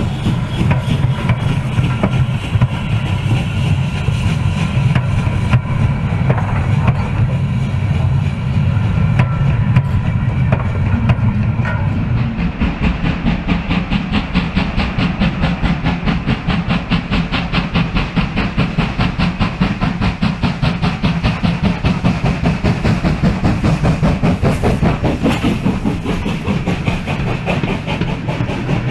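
OO gauge model trains running on the track. A steady low hum of motors and rolling stock gives way, about twelve seconds in, to a fast, continuous clicking of wheels over the rail joints as a train of coaches passes close by.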